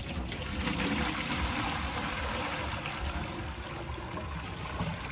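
Water trickling and splashing steadily.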